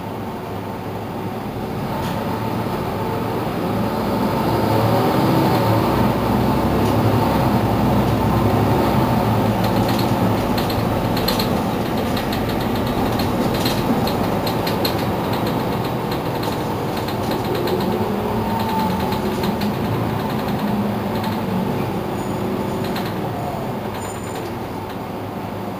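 Mercedes-Benz Citaro C2 city bus driving, its engine growing louder over the first few seconds as it pulls away, then slowly easing off and quietening toward the end. Light rattling clicks come in about halfway through.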